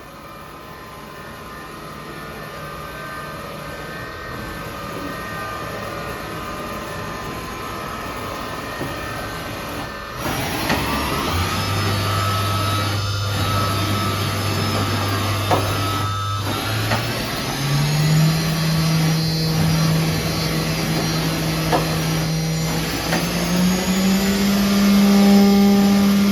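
Hardinge Bridgeport 1000 XP3 CNC vertical machining center running, its spindle being stepped up in speed. A steady hum is joined by a rising whine about ten seconds in and again twice more, each time settling on a higher steady tone and growing louder.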